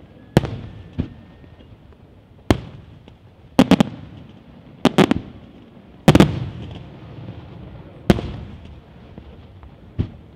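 Di Matteo aerial firework shells bursting in the sky, about eight sharp bangs at uneven intervals, several in quick doubles and triples, each trailing off in a rolling echo. The loudest cluster of bursts comes about six seconds in, and a smaller bang comes near the end.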